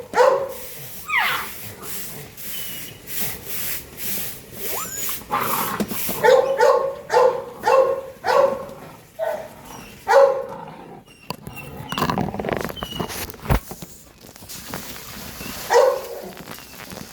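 Great Dane puppies barking in short, high yaps, with a quick run of about a dozen barks in the middle and a brief rising whine near the start.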